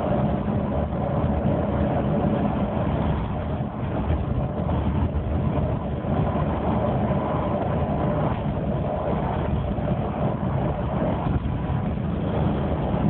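Bus engine and road noise heard from inside the bus cabin: a steady, even drone.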